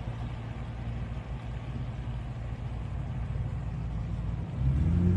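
Steady low engine rumble. Near the end it turns louder, with a deeper droning tone.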